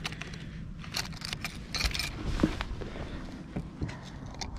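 Clicks and metallic rattles of a Bubba digital fish scale's lip clamp being handled and fastened onto a bass's jaw, thickest about a second in, over a steady low hum.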